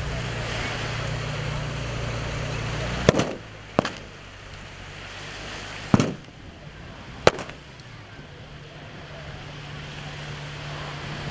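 Four sharp bangs from a mock battle, spaced between one and two seconds apart, over a steady low hum that drops away at the first bang and comes back near the end.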